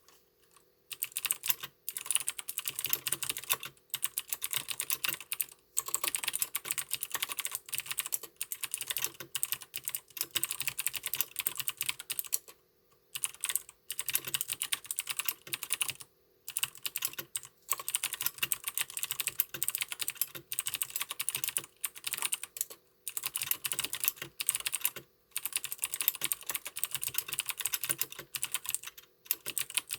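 Deck Hassium 108-key mechanical keyboard with clicky blue switches being typed on quickly. Runs of rapid key clicks are broken by short pauses every few seconds.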